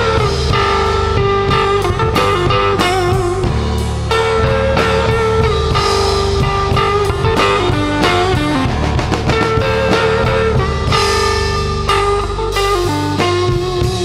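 Blues-rock band playing an instrumental passage: a lead guitar line over bass and drum kit.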